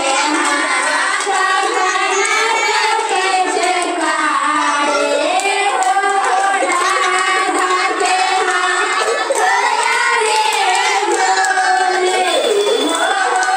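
A group of women singing a devotional song together in unison, with hand clapping.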